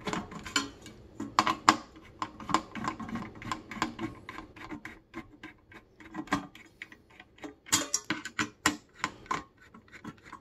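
Screwdriver tightening the spring-loaded mounting screws of a Thermalright Peerless Assassin 120 SE CPU cooler onto its AM5 bracket, making a run of irregular metallic clicks and ticks, a few of them louder.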